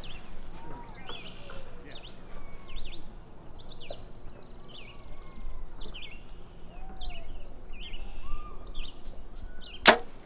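Small birds chirping throughout with short, quick calls. Near the end comes one sharp, loud crack: a compound bow being shot.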